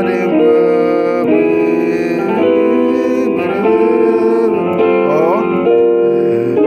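Keyboard playing a run of sustained, extended chords of a chord progression, each chord held about a second before moving to the next. A short upward slide in pitch comes about five seconds in.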